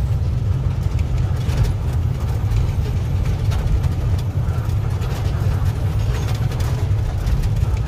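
Truck engine running steadily, heard from inside the cab while driving: a low, even drone with scattered light rattles.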